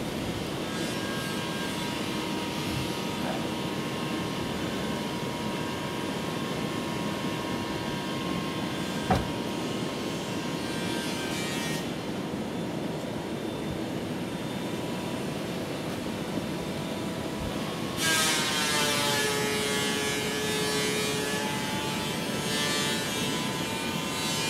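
Woodworking planer in a workshop running steadily with a hum and a whine. About 18 s in it turns louder and buzzier as a piece of wood is fed through and planed.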